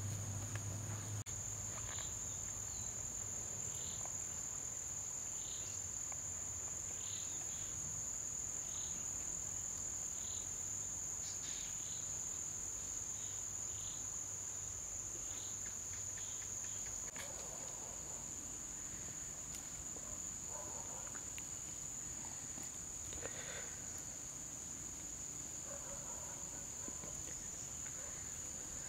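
Insects trilling in one steady, high-pitched drone, with faint short rustles and taps over it.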